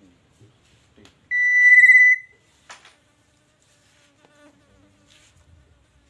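Black-naped oriole giving one loud, drawn-out whistled note with a fast warble, about a second long. A sharp click follows, then a few faint short notes.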